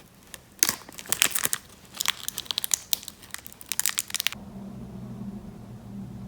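Packaging crinkling and tearing in quick, crackly bursts, as when a box is unwrapped and opened. It cuts off sharply about four seconds in, and a steady low hum follows.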